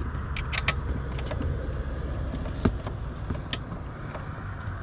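Scattered small clicks and taps of a metal bracket and its fasteners being handled and fitted by hand in a tight space, over a steady low hum.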